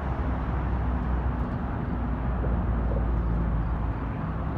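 Jet airliner's engines heard from the ground as it climbs out after takeoff: a steady low rumble.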